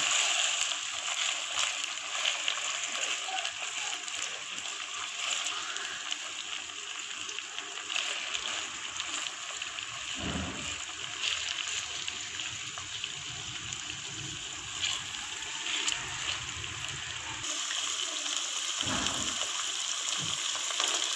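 Chicken pieces sizzling as they fry in hot ghee with browned onions in a wok, a steady crackle, with a few dull knocks now and then.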